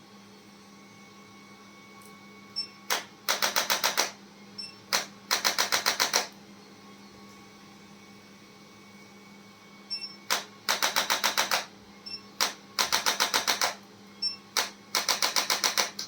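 Handheld chiropractic adjusting instrument firing in five short bursts of rapid clicking thrusts, about eight a second for about a second each. Each burst is led by a single click.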